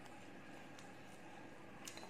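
Quiet room with a couple of faint clicks of plastic utensils against a glass bowl, the clearest near the end.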